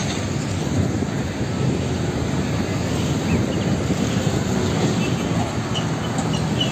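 A heavy tanker truck running, a steady engine rumble with road noise.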